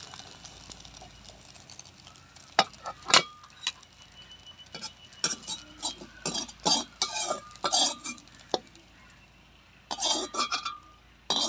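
Metal spatula scraping and clinking against a metal frying pan as a fried potato-and-egg fritter is lifted out. It comes as a scattered series of sharp knocks and scrapes, some with a short metallic ring, busiest from about halfway through.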